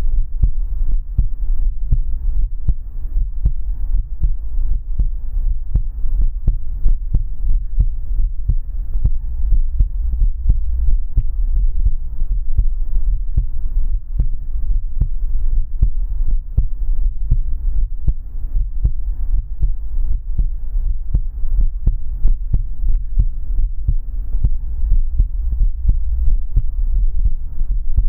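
Heartbeat: deep, low thuds repeating steadily, over a faint steady hum.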